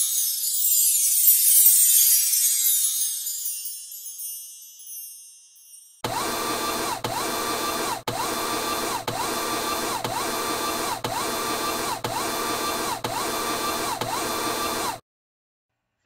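Machine-like transformation sound effect: a whirring cycle that repeats about once a second, each with a rising-and-falling whine, about nine times, then cuts off suddenly. Before it, a high shimmering sound fades away over the first few seconds.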